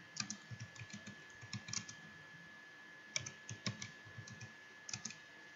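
Computer keyboard being typed on: short runs of key clicks with pauses between them.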